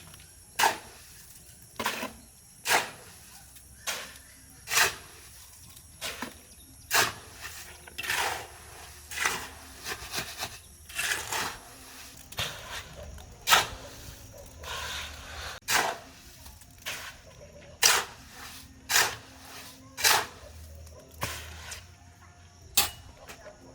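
Repeated short scraping or striking strokes, roughly one a second, some longer than others.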